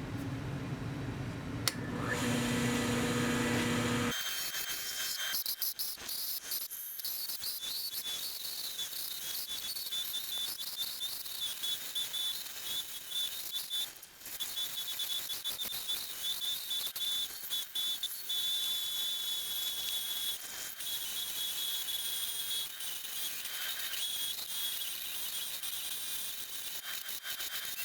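A mini wood lathe running while turning tools cut and scrape the spinning wooden handle: a steady high hiss with a thin whistle-like tone, broken by short dips as the tool comes on and off the wood. During the first four seconds a lower hum and tones sit under it; these drop away about four seconds in.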